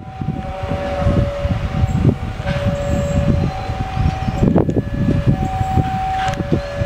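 Railway level-crossing warning alarm sounding a two-tone hi-lo pattern, the high and low tones taking turns about once a second, over a steady low rumble.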